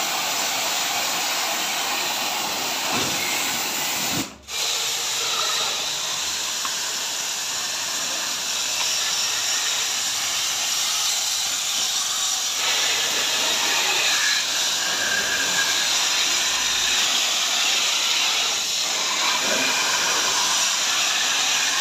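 Fine jet of water from a Mollar HPW500 pressure washer's Tassco nozzle hissing steadily as it sprays across an air-conditioner's finned coil. The hiss cuts out for a split second about four seconds in.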